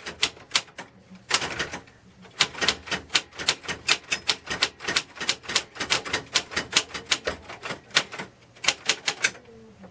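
Royal Safari manual typewriter being typed on: rapid runs of key strikes clacking about five or six a second, with a short break about a second in, stopping just before the end.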